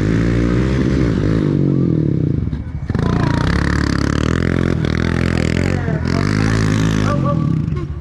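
ATV engine revving up and easing off again and again as the quad is throttled through tight turns, its pitch rising and falling. The throttle drops off briefly about two and a half seconds in and again near the end.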